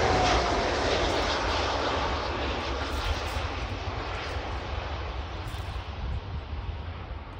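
Jet noise from a twin-engine Airbus A330 airliner on landing, passing close and then fading steadily as it moves away down the runway.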